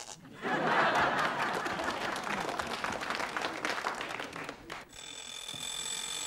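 Studio audience laughing and clapping at a punchline, dying away after about four seconds. About five seconds in an alarm clock starts ringing with a steady high ring.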